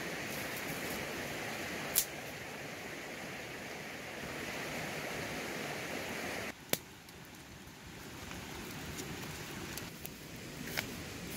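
Small twig fire catching and burning, with a few sharp crackling pops over a steady hiss.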